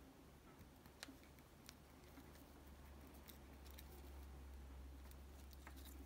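Near silence with a low hum and a few faint, scattered clicks: needle-nose pliers crimping the tabs of a small metal connector crimp terminal onto a wire.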